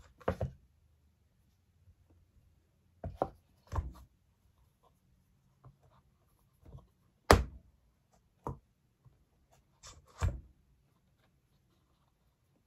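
An iPad Pro handled on a wooden desk: scattered taps and knocks as the tablet is picked up, tapped and set down, about half a dozen in all, the loudest about seven seconds in.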